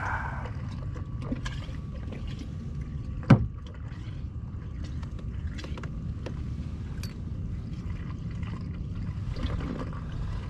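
Fishing tackle handled aboard a plastic fishing kayak: scattered small clicks and knocks over a low steady rumble, with one sharper knock about three seconds in.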